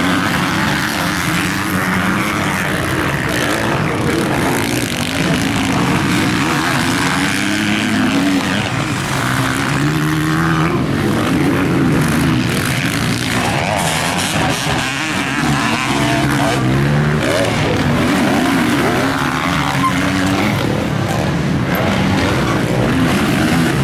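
Several motocross bike engines revving up and down as the bikes race over the dirt track, the revs of different bikes overlapping and rising and falling with throttle and gear changes.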